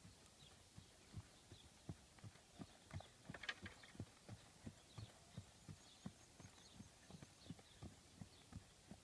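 Faint dull hoofbeats of an unshod horse trotting on hard ground, a steady rhythm of about three thuds a second. About three and a half seconds in there is a brief, scratchier sound.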